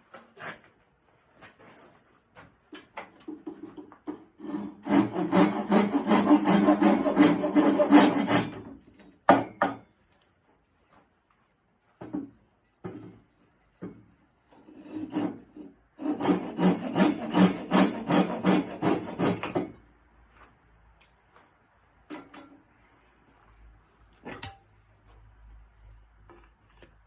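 A wooden handle spinning on a lathe with something pressed against it, giving two bursts of harsh rasping friction, each about four seconds long, the second starting about halfway through. Scattered knocks and clicks from handling fall between and after them.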